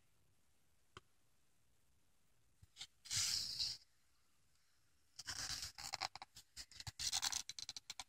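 Page of a picture book being turned: a short paper rustle about three seconds in, then faint, irregular rustling and light scraping of paper as the book is handled and settled.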